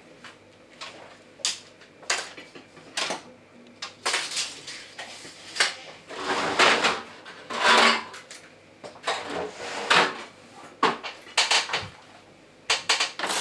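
Swag curtain fabric being pulled up and adjusted by hand: rustling and swishing of cloth with irregular sharp clicks and clinks. The two loudest swishes come in the middle.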